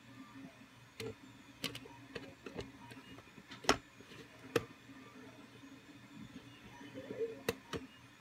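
3D-printed plastic InMoov upper-leg joint mechanism being moved back and forth, giving sharp plastic clicks and knocks every second or so over a steady low hum.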